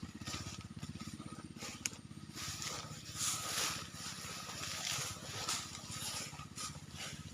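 Small engine of a power sprayer running steadily with a fast, even firing beat, used to spray herbicide. Hissing rises and falls over it, loudest about three seconds in.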